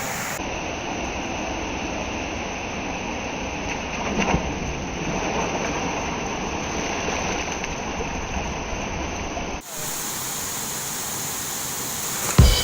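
Steady rush of a waterfall, cut abruptly twice as clips are joined, with a brief thump about four seconds in and a louder one near the end.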